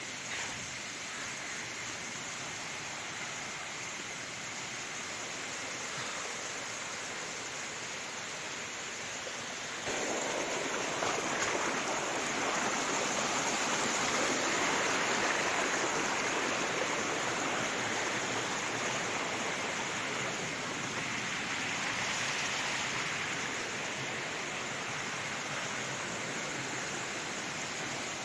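Waterfall water rushing and splashing in a steady roar, stepping up sharply in loudness about ten seconds in.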